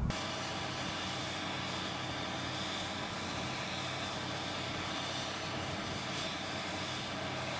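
Jet engines of a BAe 146 air tanker running steadily, an even rush of noise with a thin high turbine whine.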